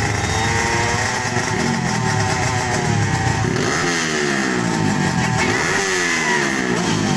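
Motorcycle engines being revved over and over, the pitch climbing and then falling away several times over a steady engine drone.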